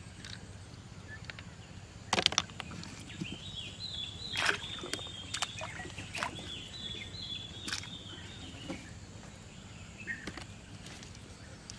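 Outdoor rural ambience with a bird calling in two quick runs of high chirping notes, and a few sharp knocks now and then.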